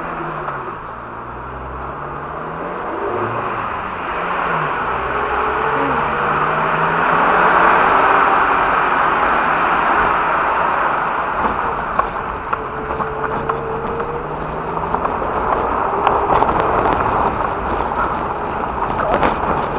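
Suzuki Jimny engine revving up and down as it drives off-road, under a broad rushing hiss that swells to its loudest about eight seconds in and then eases off.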